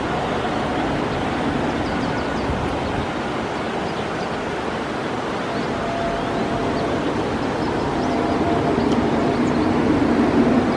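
A train running past steadily, its rumble growing a little louder near the end.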